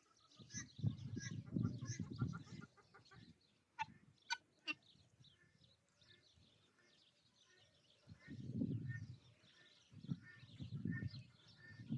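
Poultry (rooster and guinea fowl) making scattered chirps and short calls, with three sharp calls around four to five seconds in. Several louder bursts of low rumble come and go under them.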